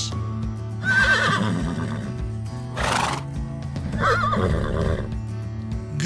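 Horse whinnying twice, about a second in and again about four seconds in, each a wavering high call, with a short burst of noise between them. Background music plays throughout.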